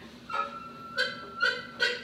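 Drum kit played in a free improvisation: four sharp strikes with a high, squeaky ringing edge, and one tone that rings on for about a second through the middle.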